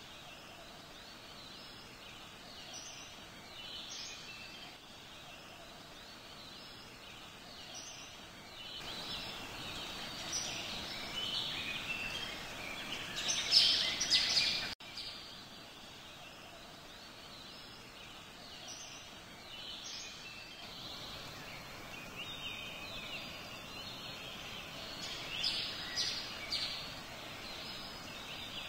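Forest ambience of many songbirds calling over a steady background hiss. The calls grow busier and louder toward the middle, then cut off abruptly about halfway through and resume at a quieter level, as a looped nature track does.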